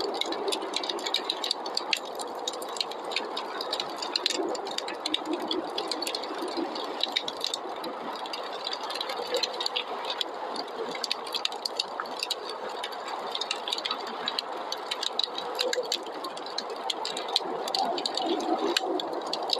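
Wood fire crackling, with frequent small sharp pops and snaps, over a steady rushing of snowstorm wind.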